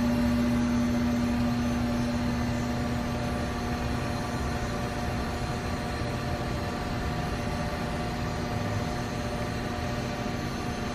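Mikron HSM-400U high-speed 5-axis CNC machining center running: a steady machine hum with several held whining tones. The lowest, strongest tone fades away about three seconds in, and the sound grows slightly quieter after that.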